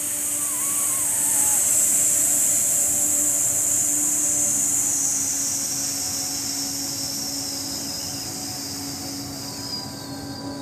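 A woman's long, forceful hissing 'sss' exhale through the teeth, lasting about ten seconds and slowly fading and dropping in pitch as the air runs out. The hiss is the resisted exhale of the core breath, drawing the abdominal muscles in and lifting the pelvic floor.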